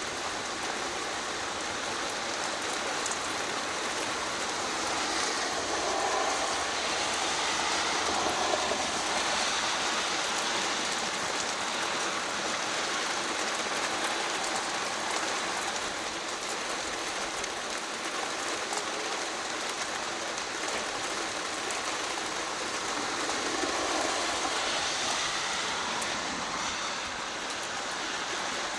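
Steady rain from a pop-up shower, an even hiss and patter on surfaces, swelling louder twice with a broad rushing sound, once between about five and ten seconds in and again a few seconds before the end.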